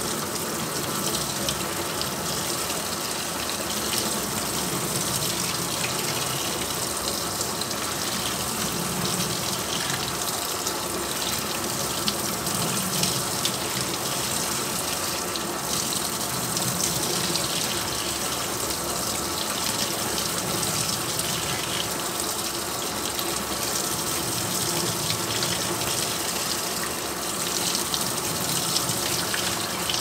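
LG TR14WK1 top-load washing machine filling: a steady stream of water pouring from the inlet into the drum.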